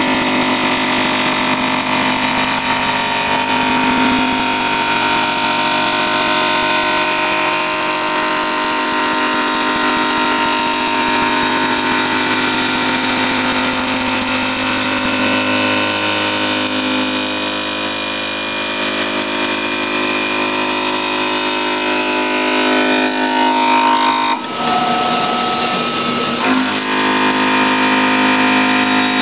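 CNC vertical machining center milling steel parts: a steady cutting noise with a whine of several steady tones from the spindle and cutter. About 24 seconds in the sound changes abruptly for a couple of seconds, then the cut settles back to its steady note.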